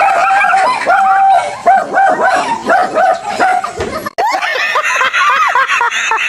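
A dog barking rapidly and repeatedly, about three barks a second. About four seconds in, the sound cuts abruptly to a man and a woman laughing loudly.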